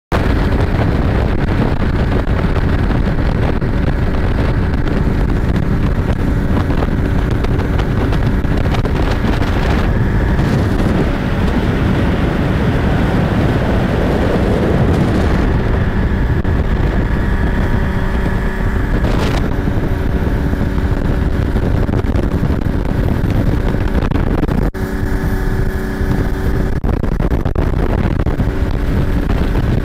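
Motor of a MOB rescue boat running steadily at speed, mixed with wind buffeting the microphone and the rush of water off the hull. Near the end the wind eases briefly and the engine's steady hum comes through more clearly.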